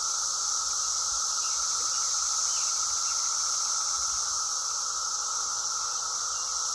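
A chorus of many cicadas droning steadily and unbroken, with a shrill high hiss over a lower buzzing tone.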